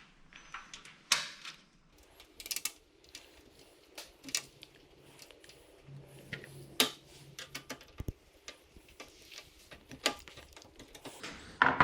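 Hands working a cable and parts into a desktop PC case: irregular small clicks, taps and rustles, with a few sharper clicks.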